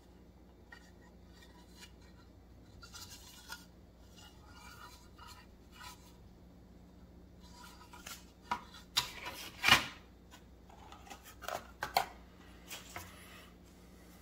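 Plastic model kit parts being handled: a hull tub turned over in the hands and a sprue picked up. Light rustles and soft clicks, then sharper plastic clicks and clatter in the second half, the loudest about two thirds of the way through.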